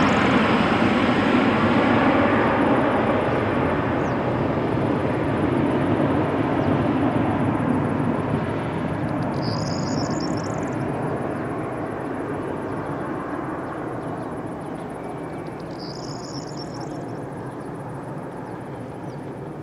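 Boeing 737-400's CFM56 turbofan engines at takeoff/climb thrust: a broad jet roar that slowly fades as the airliner climbs away after takeoff.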